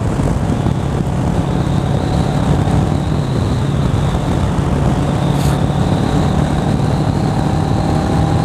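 Motorcycle engine running steadily at highway speed, with heavy wind and road noise on a microphone mounted on the moving bike. The engine pitch rises slightly in the second half.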